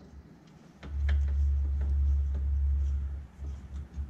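Faint clicks of a nylon-insert lock nut being worked by hand on the top stud of a golf cart rear shock, under a low rumble that starts about a second in, dips briefly and comes back.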